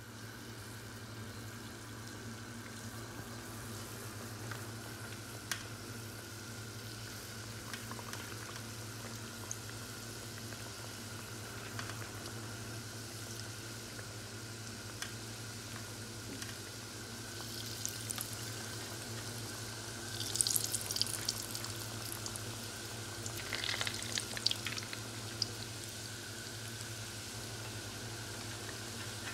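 Roscos, rings of sweet egg and olive-oil dough, deep-frying in hot oil in a pan: a steady sizzle over a low hum, with bursts of crackling and spitting about two-thirds of the way through.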